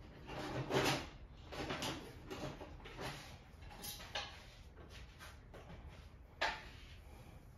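Rummaging and handling noises: a string of short scrapes and rustles, followed by a sharp knock about six and a half seconds in.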